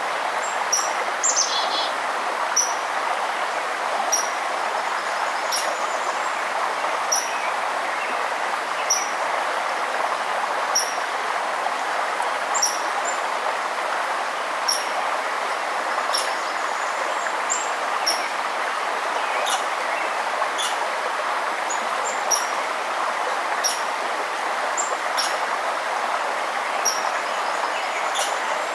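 Steady rush of a flowing forest stream, with a small bird giving short, high chirps about every one and a half to two seconds.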